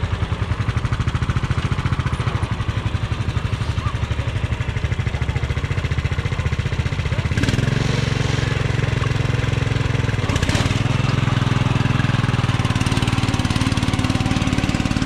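A small engine running steadily near idle with even firing pulses. About halfway through it picks up to a higher, louder speed, with two brief clatters.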